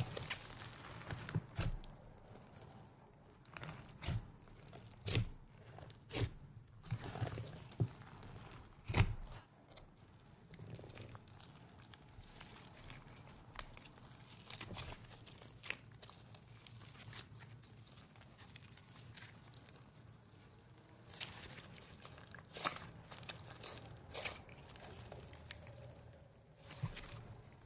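Hands squishing and stretching fluffy slime mixed with small beads and chunks: irregular sticky pops, clicks and crunches over a soft crackle, with a quieter stretch in the middle.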